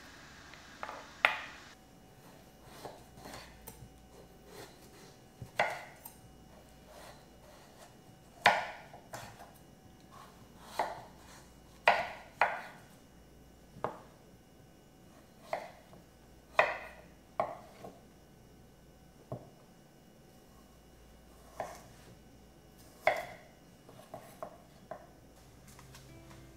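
Kitchen knife chopping a kabocha squash into wedges on a wooden cutting board. The blade goes through the hard squash and knocks on the board in separate sharp chops, one to three seconds apart.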